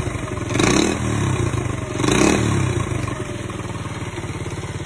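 Honda Monkey minibike's small single-cylinder four-stroke engine blipped twice, about a second in and again past two seconds, then settling back to a steady idle.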